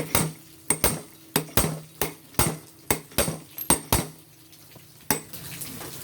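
Hammer blows ringing on steel, striking the puller on a TMX 155's magneto flywheel to break the flywheel loose from the crankshaft. About a dozen sharp strikes come in quick, uneven succession, then one more about five seconds in, over a faint steady hum.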